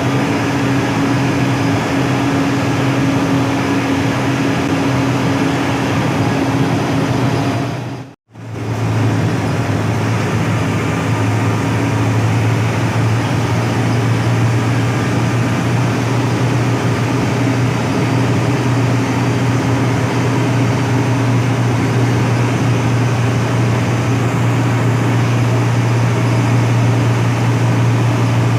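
Front-engined Hino AK8 bus on the move: steady engine drone with road and cabin noise. The sound cuts out abruptly for a moment about 8 seconds in and comes back with a stronger low hum.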